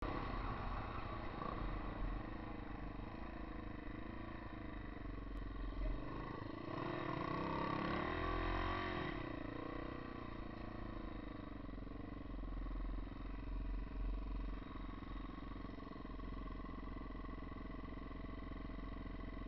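Single-cylinder four-stroke engine of a Yamaha XT250 trail bike running, its pitch rising and falling over a couple of seconds midway, then holding steady.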